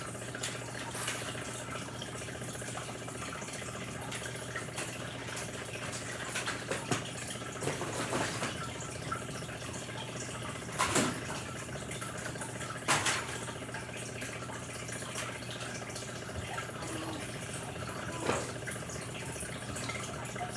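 Scattered rustling and light knocks of small toys being handled, loudest about 11 and 13 seconds in, over a steady background hiss and low hum.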